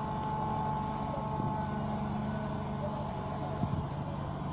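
Diesel engine of a truck-mounted mobile crane running steadily under load while it holds a lifted boat.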